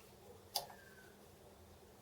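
A single sharp click about half a second in, followed by a faint falling tone.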